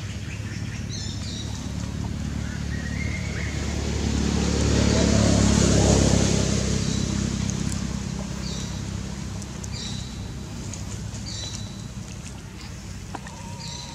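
A motor vehicle driving past: a low engine hum with tyre noise that swells to a peak about six seconds in, then slowly fades. A few short bird chirps.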